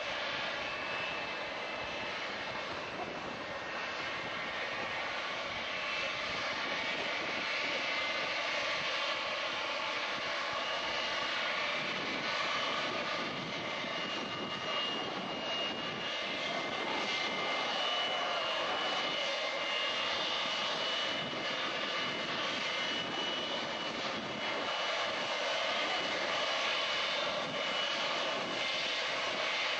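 Boeing 727's Pratt & Whitney JT8D turbofan engines running steadily, a dense jet noise with a high whine on top that grows slightly louder partway through.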